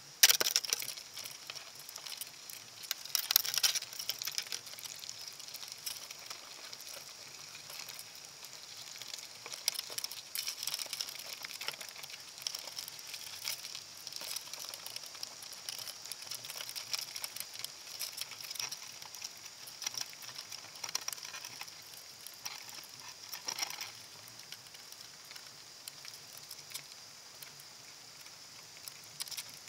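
Dense underwater crackling and clicking with scraping bursts, as a crab climbs over the wire mesh of a crab pot and its plastic bait containers; loudest just after the start and again about three to four seconds in, then fading.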